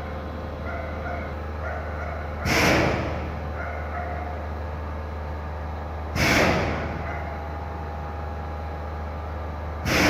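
Vacuum forming machine running with a steady low hum, broken three times, about every three and a half seconds, by a short loud burst of hiss that fades within about half a second.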